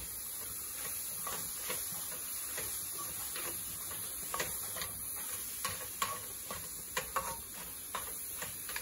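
Slotted metal spatula stirring and scraping a dry, crumbly chana dal and jaggery filling in a metal kadai, with irregular clicks of the spatula against the pan over a steady faint hiss.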